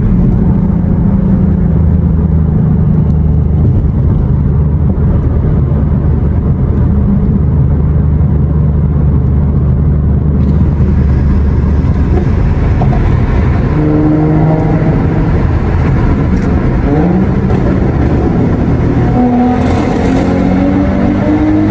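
Car engines running low and steady, then from about fourteen seconds in, engines revving in several rising sweeps as cars accelerate away.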